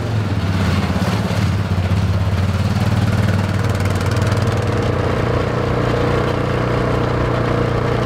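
Four-wheeler (ATV) engine running steadily as it drives off at low speed. The engine note changes a little about halfway through.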